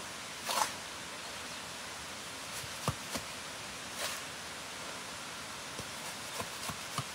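Steady hiss of rain, with a brief rustle about half a second in and a few short light knocks scattered through the second half.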